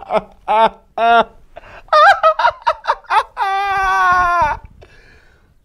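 A man's exaggerated mock screaming: a run of short wordless yelps, then one long high wail after about three and a half seconds that lasts about a second and falls slightly in pitch.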